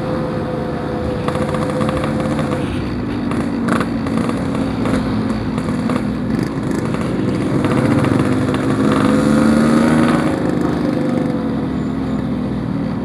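Yamaha RX-King two-stroke single-cylinder motorcycle engine running under way, its pitch and loudness rising a little about two-thirds of the way through, then easing back.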